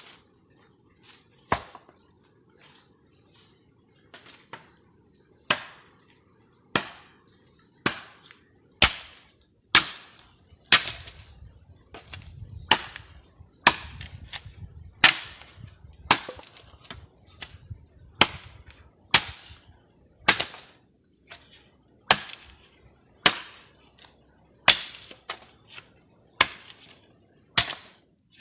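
Repeated chopping strikes with a blade, each a sharp crack with a short ring. They are fainter and irregular at first, then come about once a second and louder from about nine seconds in.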